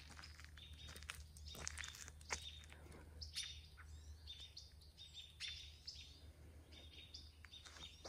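Small birds chirping faintly in the trees: a string of short, high chirps repeating every half second or so.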